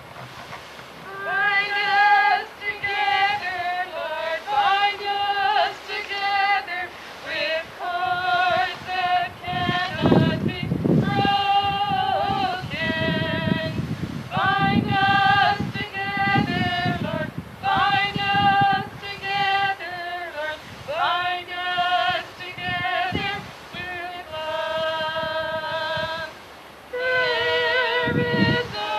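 A woman singing a slow song in long, held notes, some sliding up into pitch. Wind rumbles on the microphone about ten seconds in and again near the end.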